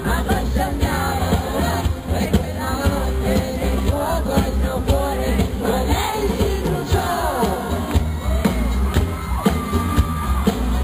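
A live pop song: a male singer's voice over a band with a steady bass, with one note held for about a second near the end.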